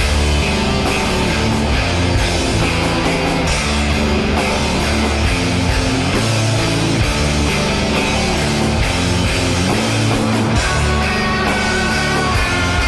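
Background rock music with distorted guitar and drums, steady and loud.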